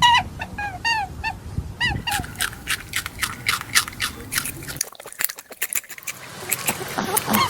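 Short squeaky animal calls, each rising then falling in pitch, about three a second. They give way to fast, crisp crunching of an animal chewing, which breaks off for about a second and then resumes.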